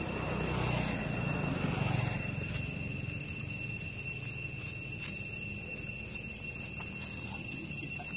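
Steady high-pitched insect drone over low rumbling noise that swells briefly in the first two seconds.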